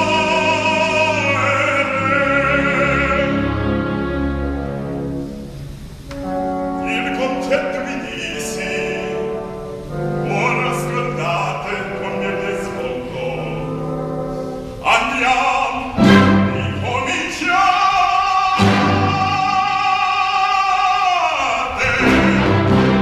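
Operatic baritone singing a dramatic aria with orchestral accompaniment, strings prominent. Sharp accented strokes from the orchestra come in the second half, and the voice holds one long note near the end.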